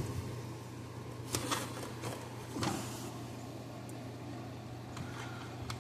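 A few faint clicks and taps of needle-nose pliers and wire connectors being pushed onto circuit board terminals, over a steady low hum.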